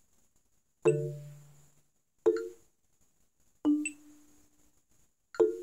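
Marimba played with four yarn mallets: four slow chords struck about one and a half seconds apart, each a dead stroke with the mallets pressed into the bars to damp the ring.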